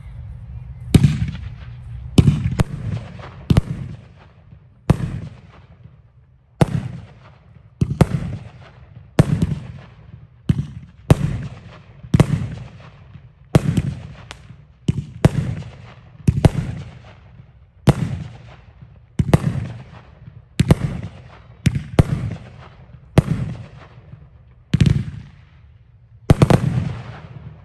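TAKO Silver & Gold 500-gram, 20-shot multishot fireworks cake firing its aerial shells one after another. About twenty sharp booms come roughly one a second, a few in quick pairs, and each has a short fading tail.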